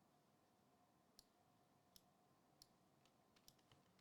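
Near silence with about six faint, irregular clicks.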